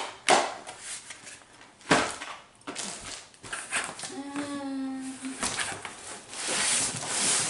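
Cardboard boxes being handled: a couple of sharp knocks of box against carton, then cardboard scraping and rustling against cardboard near the end. In the middle there is a short steady hum-like tone, a little over a second long.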